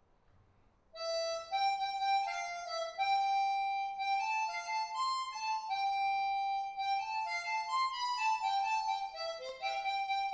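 A tune played one note at a time on a single instrument with many overtones, starting about a second in.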